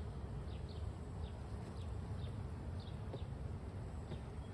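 Honeybees buzzing steadily around an open Layens hive, a dense low hum, with faint short high chirps scattered through it.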